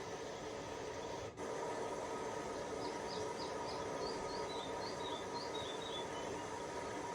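Panasonic TH-65JX900W television's speakers, heard through a phone's microphone, playing a steady rumbling, hissing ambience with a brief dropout about a second in. Midway comes a run of about a dozen short high chirps, stepping down in pitch.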